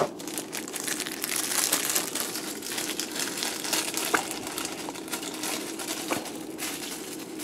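Clear plastic bag crinkling as hands handle and open it, a continuous crackle made of many small crinkles.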